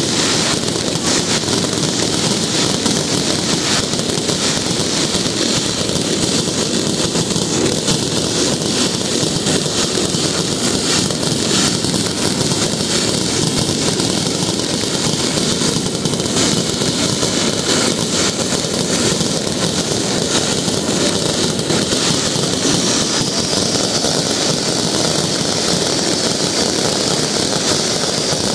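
Dense fireworks barrage: aerial shells and ground fountains bursting and crackling so close together that they merge into one continuous din, steady in level and without a break.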